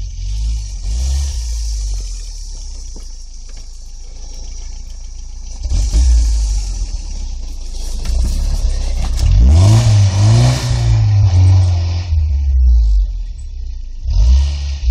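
IFS Toyota pickup's engine working through deep snow on chained tyres, rising to a hard rev as it climbs a snowbank about halfway through, with the pitch swinging up and down.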